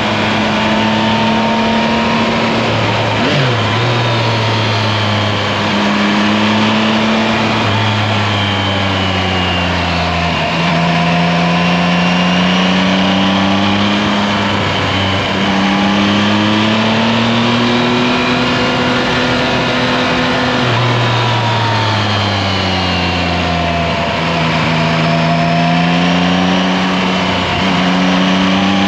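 Yamaha Tracer 9 GT's 890 cc inline-three engine under way, its pitch rising and falling several times with the throttle, over a steady rush of wind and road noise.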